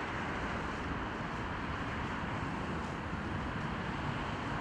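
Steady rush of road traffic, an even hiss and rumble with no distinct events.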